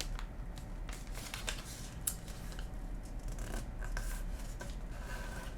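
A sheet of origami paper being folded and creased by hand, with light rustling and scraping and a scatter of short crisp ticks as fingers press the crease flat.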